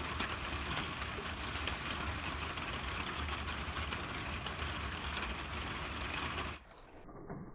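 Outdoor background noise full of dense, fine ticking and crackling over a low rumble. About six and a half seconds in it drops and turns muffled as the recording slows into slow motion.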